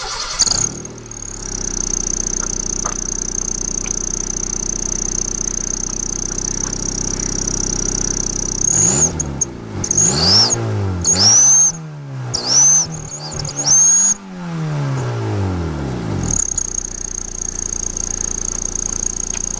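Car engine fitted with an exhaust turbo whistler: it fires up and idles with a thin, steady high whistle over the exhaust note. Midway it is revved about four times, the engine note and the whistle sweeping up and down with each rev, then it settles back to idle with the whistle. It sounds like a turbo.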